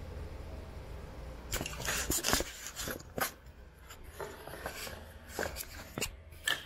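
Handling noise: a run of clicks, knocks and rustles starting about a second and a half in, then scattered single clicks, as the camera is picked up and moved about. A low steady room hum sits underneath at the start.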